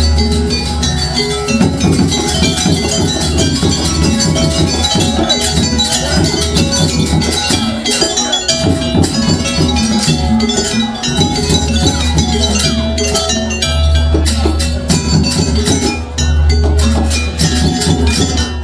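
Live jaranan ensemble music from East Java: drums and clanging metal gong-type percussion playing a continuous driving rhythm over a sustained low drone, accompanying the buto mask dance.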